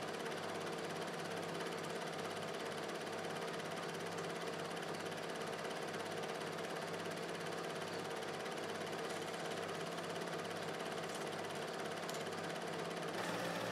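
Film projector running: a steady mechanical whir and hum with a regular low pulse about three times a second, growing a little brighter near the end.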